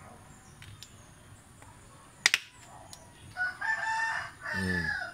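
A rooster crows once through the last second and a half or so. About two seconds in there is a single sharp click or knock, the loudest sound here.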